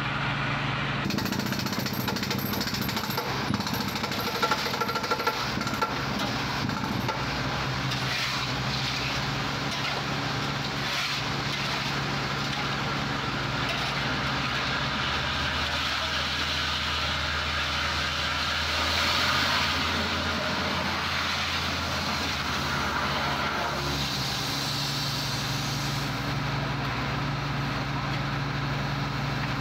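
Compact borewell drilling rig at work: its engine runs with a steady low hum under a dense, hammering drilling noise that comes in about a second in and eases off near the end.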